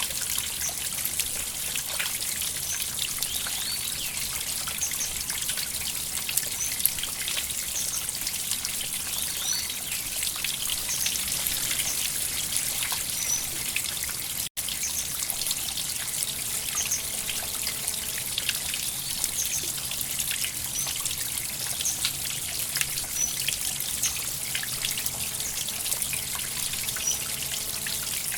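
River water flowing and trickling over stones: a steady rush with many small splashes and drips. The sound cuts out for an instant about halfway through.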